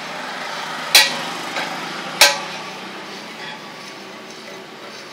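Two sharp metallic clanks, one about a second in and another about a second later, each ringing briefly, over a steady background noise. They are metal parts of an opened hermetic refrigerator compressor being knocked.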